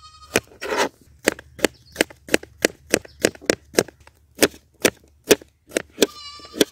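Kitchen knife slicing raw green bananas into thin rounds on a plastic cutting board: a steady run of sharp knocks, about three a second, as the blade strikes the board. A brief high-pitched tone sounds near the end.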